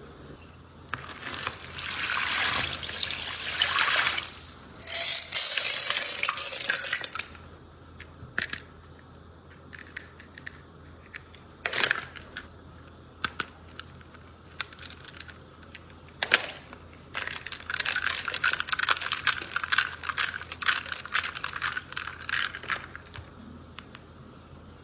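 Unboxing handling noise: packaging rustling and crinkling in several bursts, loudest a few seconds in and again in a long stretch near the end, with scattered sharp clicks and taps between.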